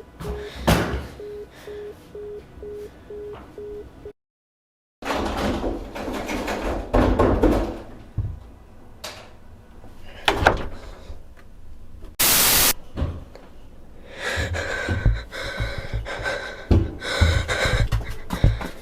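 A telephone tone beeping in a steady on-off pattern, cut off about four seconds in. Then a run of knocks and bangs, as on a door, with a short loud burst of hiss about twelve seconds in.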